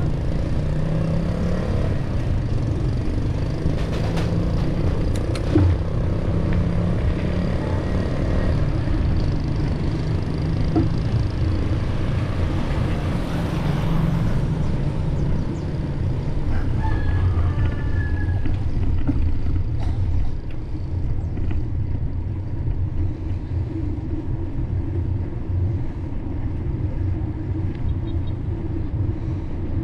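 Steady low rumble of riding along a concrete road, with a rooster crowing once, briefly, about seventeen seconds in.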